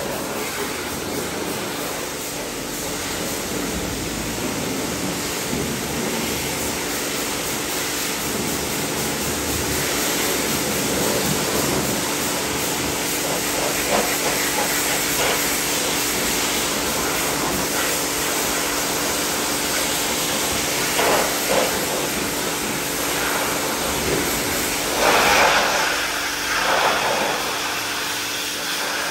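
Pressure washer spraying water on the truck: a steady loud hiss over a constant low hum, with a few louder bursts of spray near the end.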